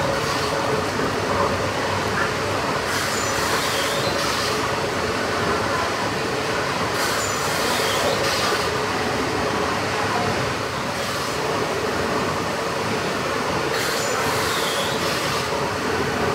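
The Sir William Prescott triple-expansion steam pumping engine running at speed, giving a steady mechanical din. A hiss rises and falls about every four seconds with each slow revolution, over a faint steady hum.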